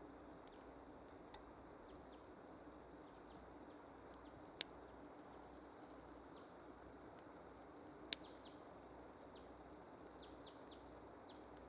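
Quiet outdoor forest ambience: a faint steady hiss with small birds giving short, high, falling chirps now and then, and two sharp snaps, about four and a half and eight seconds in.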